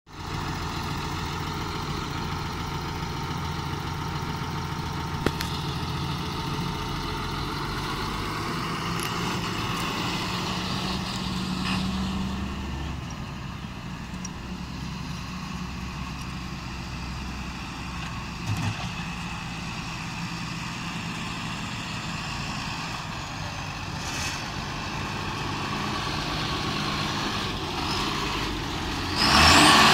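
John Deere 6930 Premium tractor's six-cylinder diesel engine running steadily as the tractor is driven, its note shifting a little partway through. A short, louder rush of noise comes near the end.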